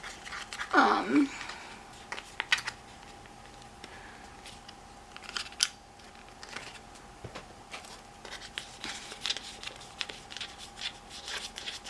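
Packaging of a small enamel pin being handled and worked open: scattered sharp clicks, then a dense run of scratchy clicking and rustling in the last few seconds. A short falling vocal sound about a second in.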